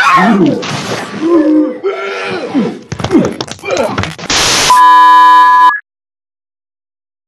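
Loud voice sounds with wavering pitch, then a short burst of noise and a steady electronic beep tone lasting about a second that cuts off suddenly, followed by dead silence.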